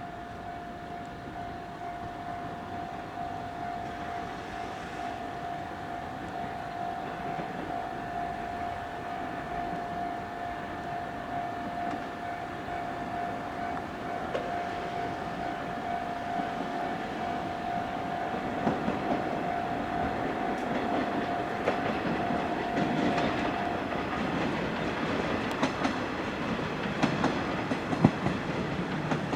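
An EF64 electric locomotive and its train of E217 series cars roll into the station, the run growing slowly louder, with wheels clicking over rail joints and rumbling from about eighteen seconds in. A steady siren tone holds for the first twenty-odd seconds, then stops.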